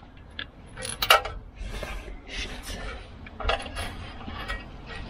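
Metal clinks and scrapes of a socket on an extension bar being worked onto the spark plugs and turned, several separate irregular clinks with the loudest about a second in.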